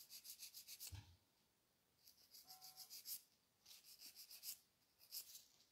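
Faint rasping of a hand nail file worked in short, quick strokes over a cured gel nail, in four brief bursts. This is light filing to smooth out small imperfections in the cured gel surface.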